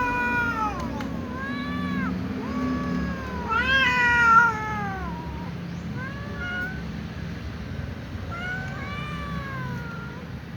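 Little cat meowing over and over, about eight arching calls, some long and some short, with the loudest about four seconds in.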